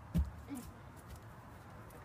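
Dull thuds of hands and feet striking grass during a round-off into a backflip: one clear thud just after the start, a softer one about half a second in, then only faint outdoor background.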